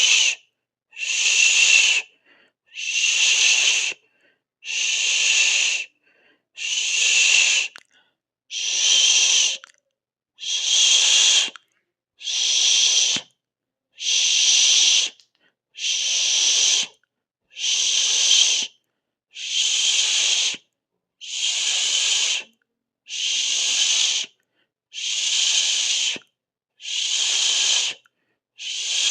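A person making a long 'sss' hiss through the teeth, over and over, about one every two seconds. Each hiss lasts a little over a second, with silence between.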